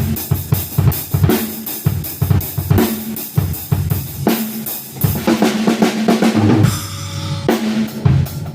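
A drum kit playing a steady groove, with kick drum, snare and cymbal hits over sustained low bass notes. The pattern changes briefly about seven seconds in.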